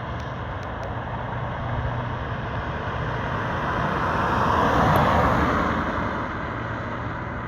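A car on worn budget RoadX tyres driving past, its tyre road noise and engine hum swelling to a peak about five seconds in and then fading.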